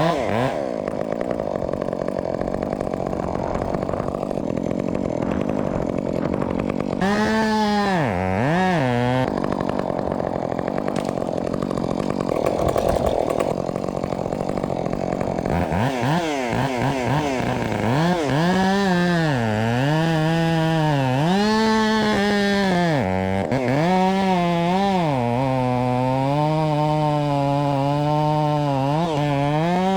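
Modified Husqvarna 562XP two-stroke chainsaw cutting wood at high revs. It runs steady under load for about half the time, then its pitch dips and climbs repeatedly as the throttle is worked through the cut.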